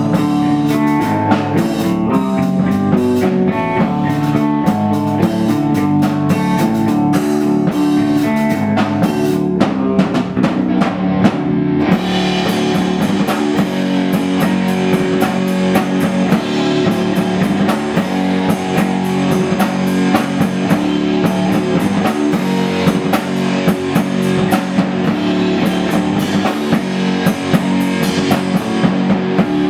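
Live progressive rock band playing: electric guitars over a drum kit. About twelve seconds in the sound grows fuller and brighter, with more cymbal and guitar in the treble.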